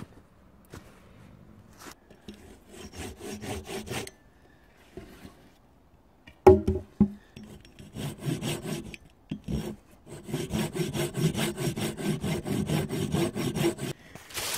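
Folding pruning saw cutting through a dead-wood pole in back-and-forth strokes, with pauses between runs and one sharp knock about six and a half seconds in. The strokes come quicker and steadier over the last four seconds.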